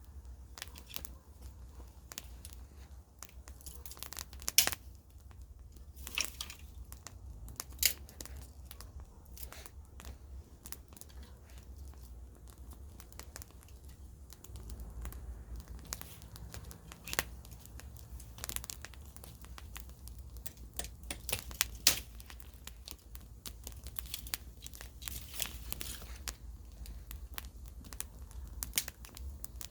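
Wood campfire crackling: irregular sharp pops and snaps of burning wood over a low steady rumble, with a few louder snaps scattered through.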